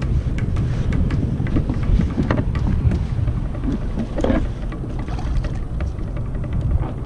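Wind buffeting the microphone and choppy sea water sloshing against a kayak hull, with drips and small splashes as a striped bass on an umbrella rig is lowered into the water.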